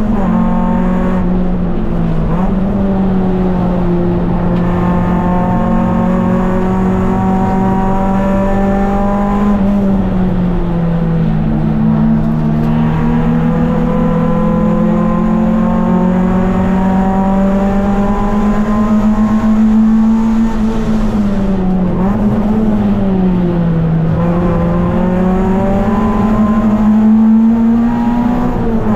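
Race car engine heard from inside the cockpit, running hard at high revs for the whole stretch. Its pitch drops sharply about two seconds in and again at the very end, as on quick upshifts. A little past twenty seconds it sinks and then climbs again, as when the car slows for a corner and accelerates out.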